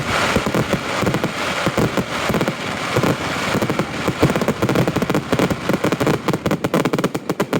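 Fireworks going off in a dense, rapid barrage of bangs and crackling, many reports a second with no pause. The cracks grow sharper and more distinct in the second half.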